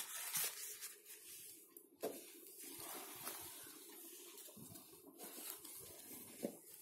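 Paper and card rustling, with scattered light taps and clicks, as the panels of a handmade cardboard gift box are handled and unfolded.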